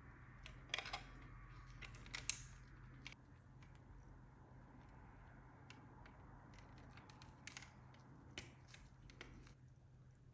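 Faint clicks and light taps of small parts or hand tools being handled, a few sharp ones standing out, over a steady low hum.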